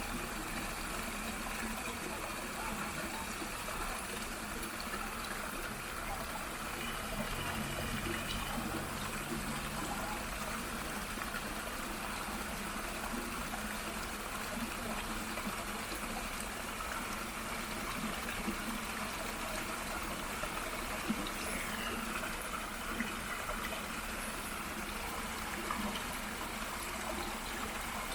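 Small waterfall and shallow stream flowing steadily over rocks, a constant murmur of running water.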